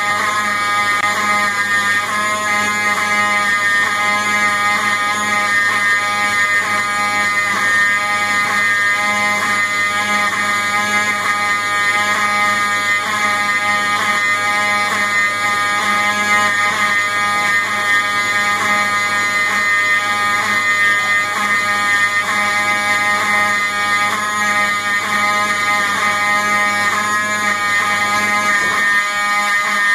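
Building fire alarm sounding continuously: a loud, harsh, steady buzzing tone that never lets up.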